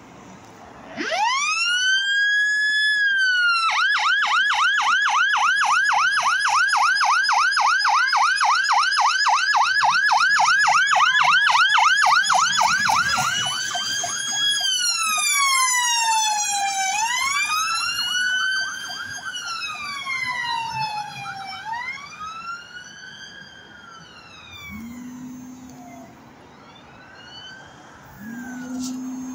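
Fire engine's electronic siren starting with a rising wail, switching to a fast yelp, then slow wails from two emergency vehicles overlapping and fading as they pull away. Two short, low horn blasts near the end.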